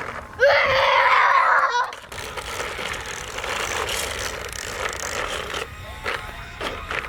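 A loud, shrill sound lasts over a second, starting about half a second in. It is followed by the plastic rattle and clicking of a toy bubble lawn mower being pushed along a sidewalk, with a few sharp clicks near the end.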